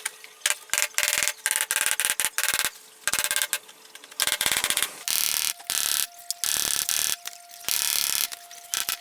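A plastic front splitter being forced onto the edge of a car bumper, scraping and clicking in a run of short rasping bursts as it is worked on bit by bit. A faint steady tone sits in the quieter gaps in the second half.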